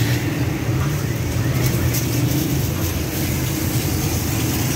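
Kebab patty frying in oil on a flat steel griddle, a steady sizzle over a low steady engine-like rumble from the street.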